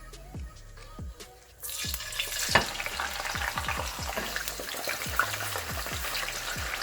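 Vinegar-marinated tilapia (daing) frying in hot oil: the sizzling starts suddenly about one and a half seconds in and keeps up steadily, with one sharp pop about a second later.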